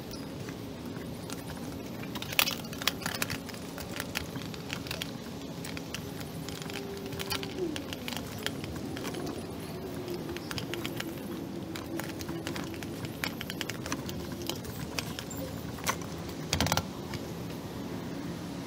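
Nylon military pouches and a plate-carrier vest being handled and packed: rustling with scattered clicks and ticks of buckles and fittings, and a louder knock about two seconds in and again near the end, over a steady low hum.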